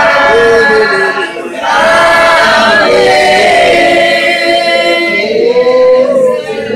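Congregation singing a hymn a cappella, men's and women's voices together holding long, slow notes, with a short breath between phrases about a second and a half in.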